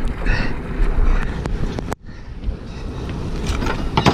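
Wind buffeting the camera microphone over steady boat rumble, while a gaffed yellowfin tuna is hauled aboard. Near the end comes a burst of splashing and thrashing as the fish comes over the side. The sound drops out briefly about two seconds in.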